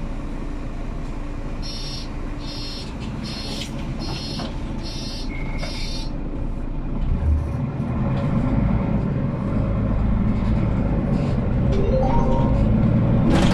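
Six evenly spaced high beeps, a little under one a second, as the doors of a Mercedes-Benz Capacity articulated bus give their closing warning; then the bus's diesel engine and drive rise in a low rumble, growing louder as it pulls away from the stop, heard from inside the passenger cabin.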